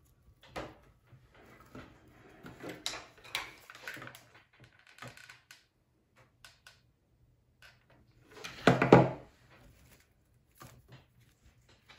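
Handling noise from artificial flower and fern stems being worked into a grapevine wreath: small clicks and rustles. A louder thump comes about nine seconds in.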